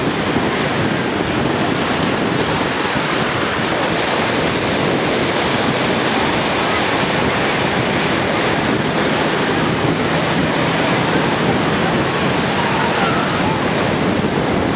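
Steady rushing of wind on the microphone over breaking surf, even in level throughout.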